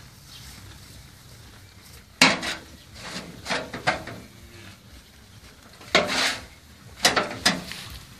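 Steel pitchfork tines scraping and clanking against a metal wheelbarrow tray as grass is forked out, a handful of sharp scrapes and knocks in two spells, some of them ringing briefly.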